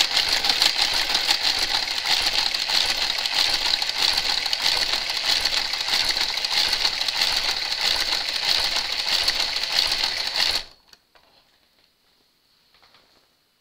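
Motorised Brother garter carriage travelling along a Brother 930 knitting machine's needle bed, linking a seam. It runs steadily with rapid clicking and a high whine, then stops abruptly about three quarters of the way through.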